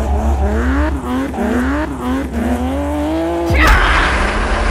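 Car engine sound effect accelerating, its pitch climbing and dropping back about five times as if shifting up through gears, over a low rumble. About three and a half seconds in it gives way to a loud noisy tyre skid.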